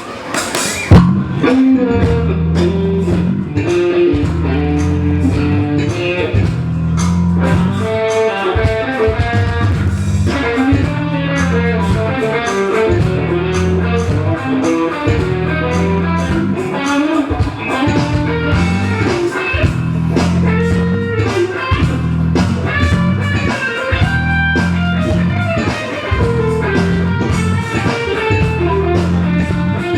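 Instrumental soul-funk band playing: electric guitar melody over bass guitar and a drum kit keeping a steady beat. The full band comes in with a loud hit about a second in.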